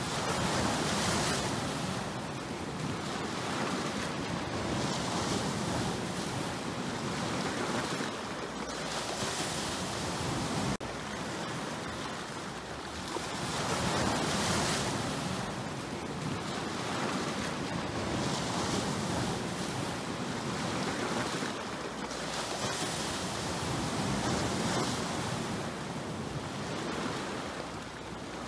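Sea waves washing and breaking against a shore of rock boulders, the surf surging every few seconds, with wind on the microphone.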